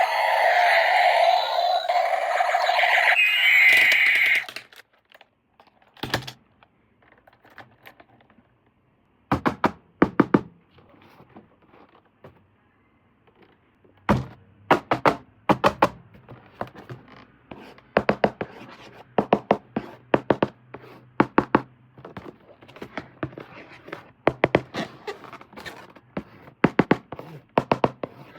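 A battery-powered toy's electronic siren-like sound effect plays loudly and cuts off about four seconds in. After it come scattered sharp plastic clicks and knocks in short clusters, as toys and packaging are handled.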